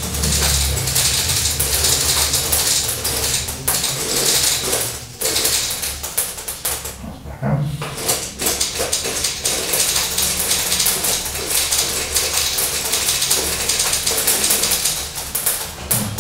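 Beads of a quincunx (Galton board) dropping through the rows of pins and piling into the collection columns: a dense, continuous clatter of small clicks.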